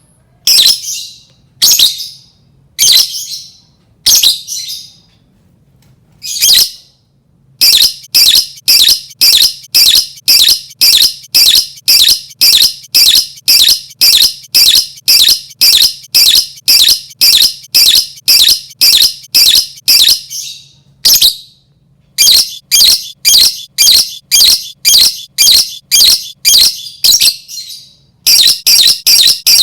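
Lovebird calling in shrill repeated notes. It starts with a few separate calls about a second apart, then goes into long runs of rapid calls at about two a second, which break off briefly twice.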